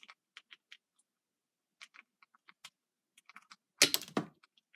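Small plastic clicks and taps from handling a jointed plastic action figure, its parts being moved and snapped in their sockets, with a louder short clatter of clicks near the end.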